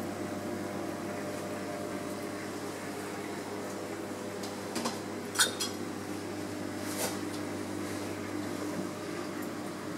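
Reef aquarium pump and water circulation running with a steady hum and liquid wash. A few short clinks come around the middle, the second the sharpest.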